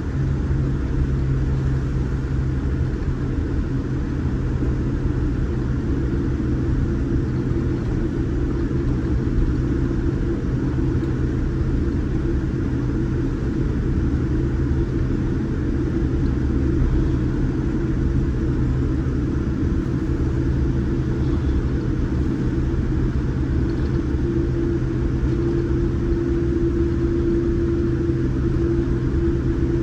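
Steady engine and airflow drone inside the cabin of a Boeing 787 Dreamliner under way, a deep rumble with a low hum, joined by a higher steady tone about three-quarters of the way through.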